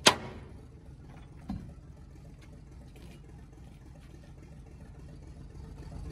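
A sharp bang with a short ring right at the start and a lighter knock about a second and a half in, over the low steady hum of an engine running, which grows a little louder near the end.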